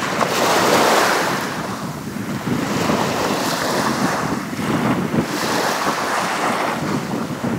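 Surf washing onto a sandy beach, a steady rush that swells and eases, with wind buffeting the microphone.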